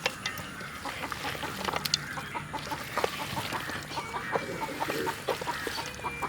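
Domestic hens clucking in short, scattered calls, among light taps and clicks.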